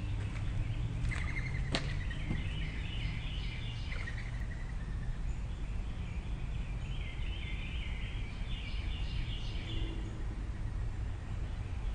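Birds chirping in quick repeated calls, in two spells, over a steady low rumble of background noise, with one sharp click nearly two seconds in.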